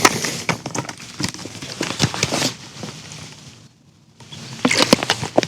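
Irregular clicks and crackling rustle of camping gear being handled, dying away after about three seconds, then another short flurry of clicks near the end.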